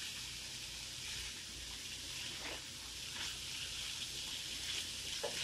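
Chopped cabbage, carrot and bell peppers sizzling quietly in a frying pan as they are stirred with a wooden spatula, with a few light scrapes of the spatula on the pan.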